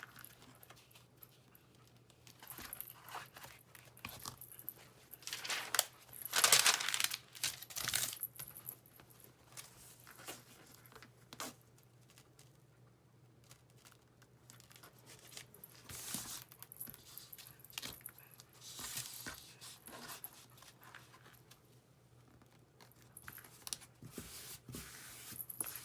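Paper and fabric rustling and crinkling in scattered short bursts as a cross-stitched fabric is laid and pressed onto a self-adhesive mounting board. The loudest handling comes about six to eight seconds in.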